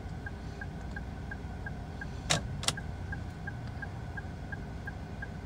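Turn-signal indicator ticking steadily at about three ticks a second, with two louder sharp clicks of the indicator stalk a little past two seconds in.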